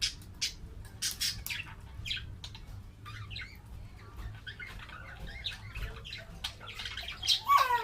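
Pet parrot making short chirps and scratchy clicking calls, ending with one louder call that falls steeply in pitch near the end.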